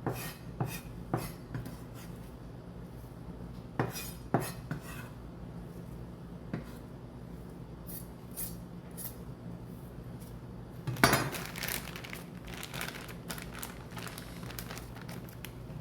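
Kitchen utensils and dishes clinking and knocking now and then while ingredients are handled. The loudest clatter comes about eleven seconds in, followed by a quick run of smaller clinks.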